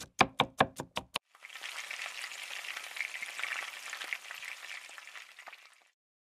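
A quick run of knife chops on a cutting board, about five a second, stopping a little over a second in; then food sizzling in a hot pan, which fades out about a second before the end.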